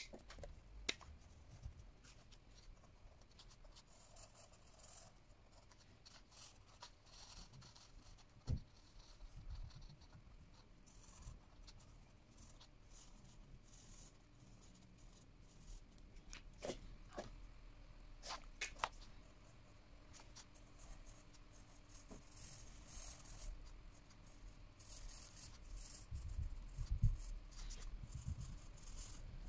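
Felt-tip marker tips scratching on paper in coloring strokes, faint, with a few sharp clicks as markers are set down and picked up.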